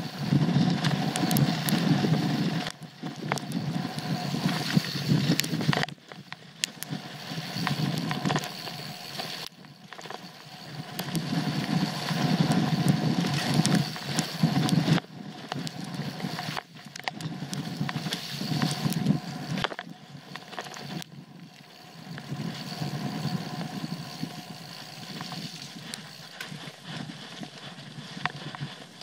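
Trek Full Stache 8 mountain bike riding fast over a dirt trail: tyre and trail rumble that swells and fades in surges, with frequent rattles and knocks from the bike over bumps.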